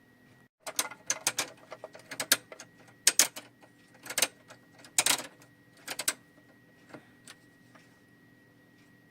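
Small hard toy parts clicking and clacking as they are handled: diecast and plastic Siku 1:32 farm models. The clicks come in irregular clusters, most of them in the first six seconds, then only a few scattered ticks.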